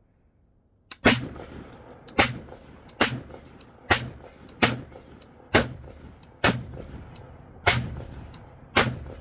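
Colt AR-15 rifle firing single shots in steady semi-automatic succession: nine sharp reports, a little under one a second, each with a short echoing tail. They begin about a second in.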